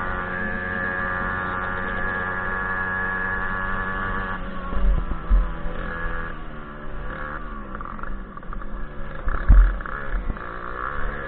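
Small two-stroke moped engine, of the Fichtel & Sachs kind, running at a steady high pitch. About four seconds in the note drops and then wanders up and down, broken by heavy thumps about five and nine and a half seconds in.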